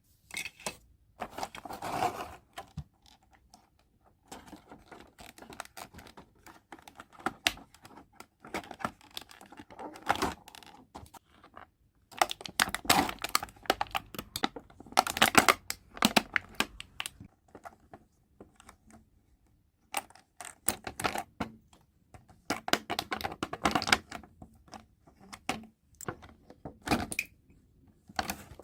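Hands unwrapping and handling toy packaging: crinkling and tearing of wrapping mixed with rapid light clicks of small plastic pieces. It comes in bursts separated by a few short pauses.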